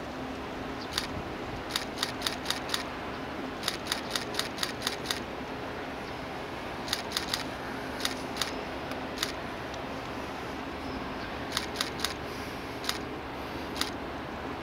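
Camera shutters clicking, singly and in quick bursts of several frames, over a steady background noise with a faint low hum.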